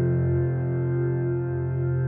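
Background music of long, held low notes.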